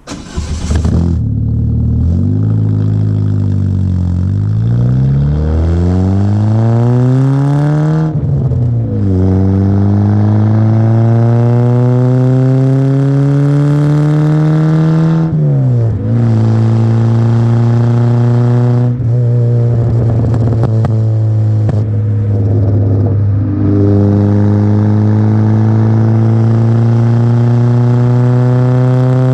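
Peugeot 106 1.1-litre four-cylinder petrol engine breathing through a custom exhaust, pulling up through the gears. The engine note climbs in pitch in each gear and drops sharply at three upshifts, then settles into a steady drone.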